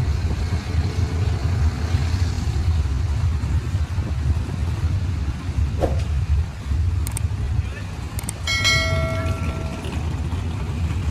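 Low rumbling background noise throughout, with a short horn toot about eight and a half seconds in, lasting about a second.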